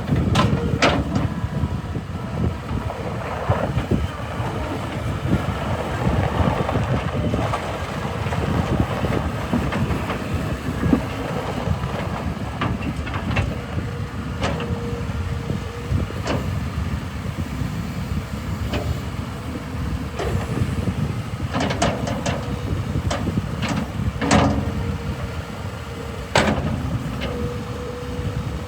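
New Holland LX665 skid steer running steadily, with occasional sharp knocks, several close together in the last third.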